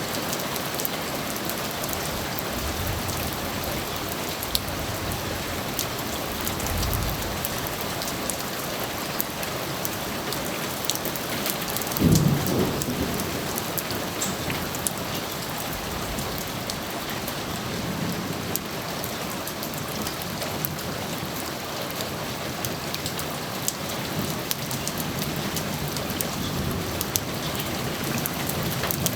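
Steady rain with thunder: low rumbles come and go, and a louder, sharper thunderclap near the middle.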